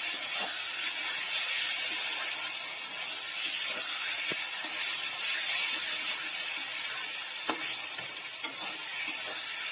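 Onion, garlic and spice masala sizzling in hot oil in a steel kadhai as a spatula stirs it, with a few sharp clicks of the spatula against the pan. The masala is nearly done, close to the point where the oil separates.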